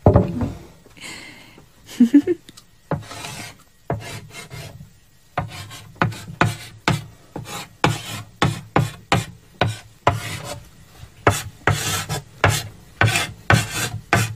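Chalk writing on a chalkboard: a run of short, irregular scratching strokes as characters are written, starting about three seconds in and coming thicker and faster from about five seconds.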